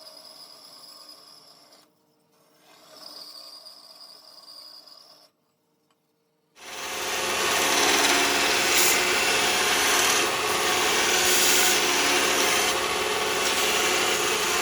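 Steel spur blanks being ground to shape: two shorter scraping passes, then after a break a loud continuous grinding of metal from about six and a half seconds in.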